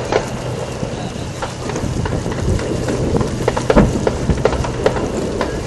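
Fireworks display: aerial shells bursting in an irregular string of booms and pops, the loudest a little after halfway, over a steady noisy background.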